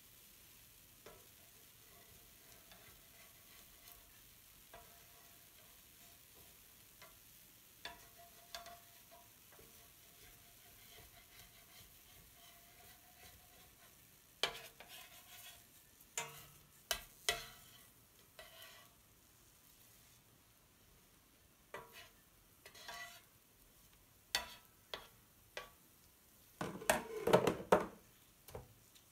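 Spatula scraping and tapping on a pancake griddle as it lifts and gathers thin strips of cooked batter, over faint sizzling. The scrapes come in short separate strokes from about halfway through, with the loudest run of scraping and clatter near the end.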